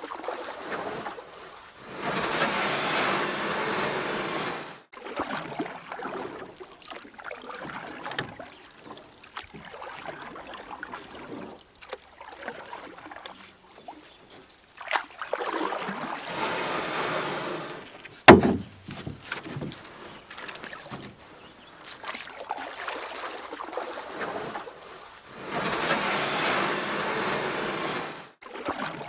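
Kayak paddling: water splashing and rushing around the boat, swelling in three stretches of a few seconds each, with one sharp knock about 18 seconds in.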